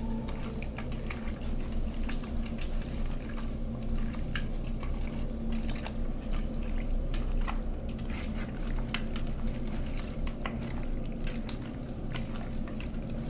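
Hands mixing raw chicken pieces with curd in a bowl: wet squelching with many small clicks and knocks, over a steady low hum.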